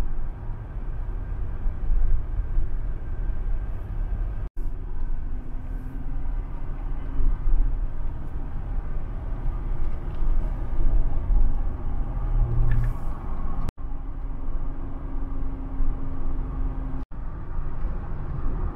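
Steady road and engine rumble of a vehicle driving, with a faint whine. The sound cuts out for an instant three times.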